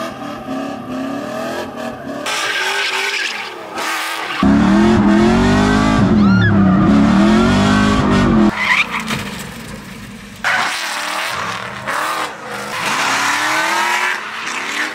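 Drift cars revving hard and sliding with tyre squeal, in a string of short clips that cut abruptly from one to the next. The loudest stretch, about four to eight seconds in, is an engine revving up and down heard from inside a drifting car.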